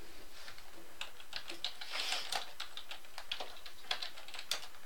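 Typing on a computer keyboard: a quick, irregular run of light key clicks.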